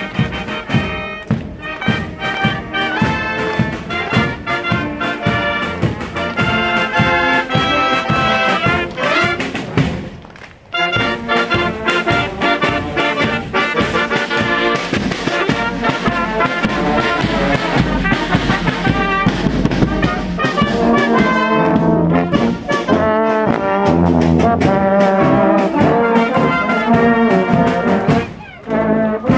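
Volunteer fire brigade brass band marching and playing: trumpets, saxophones and tubas carry the tune over a steady bass-drum beat, with a brief break about a third of the way through.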